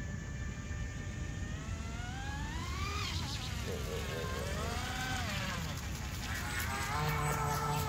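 Electric RC speedboat's motor whining over the water, its pitch climbing and dropping several times as the throttle is opened and eased, then rising and holding near the end on a run at speed.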